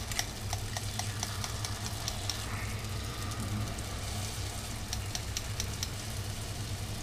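Zeppole batter balls deep-frying in a pot of vegetable oil at about 350 °F: a steady sizzle with frequent small pops and crackles, over a low steady hum.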